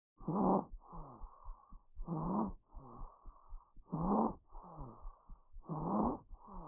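Recorded abnormal breath sounds heard through a stethoscope, with squeaky, whistling tones on the breaths. About one breath every two seconds. Each breath is a short louder pitched phase followed by a longer, quieter phase whose tones fall in pitch.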